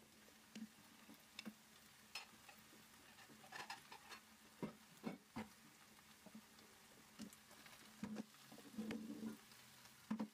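Faint clinks and knocks of a glass lid being lifted off a granite-coated cooking pot, and of the pot being handled, a dozen or so small irregular taps. Beneath them runs a soft, steady sizzle of food simmering on the hob.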